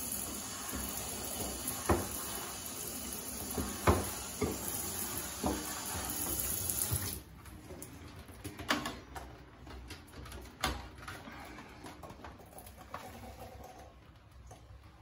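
Hand-held shower head spraying water onto a potted spider plant in a bathtub: a steady hiss with a few sharp knocks. About seven seconds in the spray cuts off suddenly, leaving quieter scattered clicks and drips.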